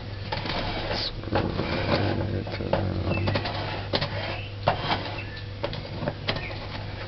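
Knife scraping and knocking around the inside of a cake tin to loosen the baked cake, a run of irregular short clicks and scrapes over a steady low hum.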